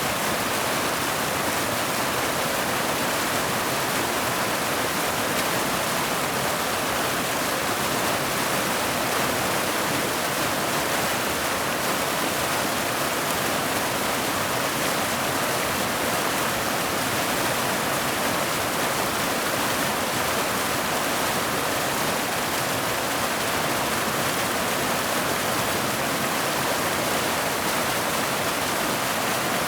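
Mountain waterfall: water cascading down boulders into a pool, a steady, unchanging rush.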